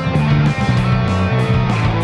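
Instrumental rock music: electric guitar and bass over a steady, fast beat.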